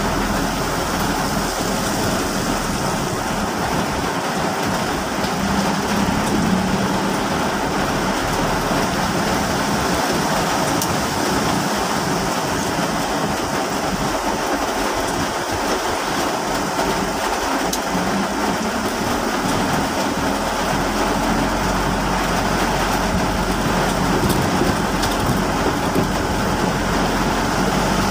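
Heavy rain falling on a car's windshield and roof, heard from inside the cabin as a loud, steady hiss, over the low hum of the car driving on the flooded road.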